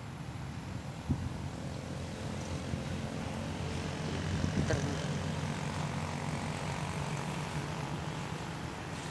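A vehicle engine running steadily with a low drone, swelling slightly about halfway through, with a couple of brief knocks.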